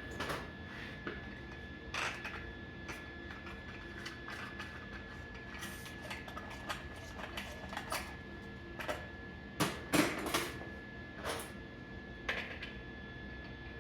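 Scattered clinks and knocks of scrap-metal parts being handled and set in place, with the loudest cluster of knocks about ten seconds in.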